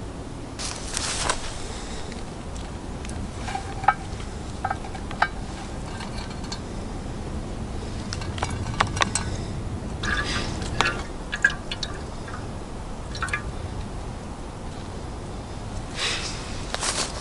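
Scattered clinks and taps of camp cooking gear being handled, with a few short rushes of noise, over a steady low rumble.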